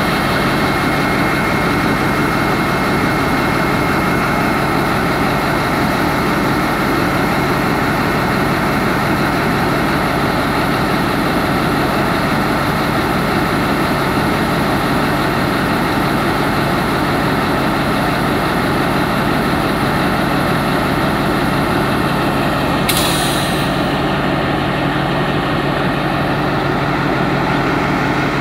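Caterpillar-engined Alsthom diesel-electric locomotive running steadily at idle with a constant low drone. A high hiss over the engine cuts off sharply about three-quarters of the way through.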